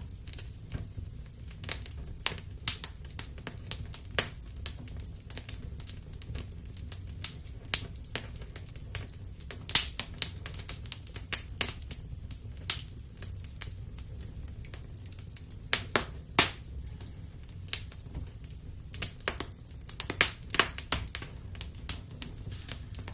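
Wood fire in a fireplace crackling: irregular sharp pops and snaps, a few louder ones, over a steady low rumble of the flames.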